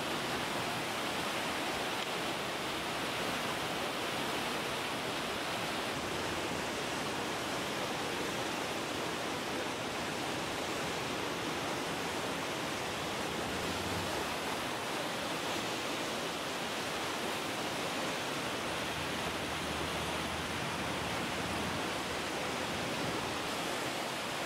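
A swollen river in flood, its muddy floodwater rushing with a steady, unbroken noise.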